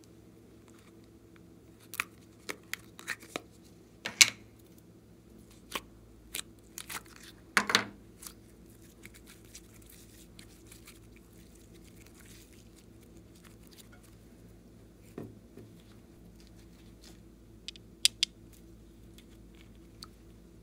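Blue glitter slime being stretched and pulled apart by hand, making a series of sticky, crackly snaps and clicks. The snaps come in irregular clusters, loudest in the first eight seconds, with a few more near the end.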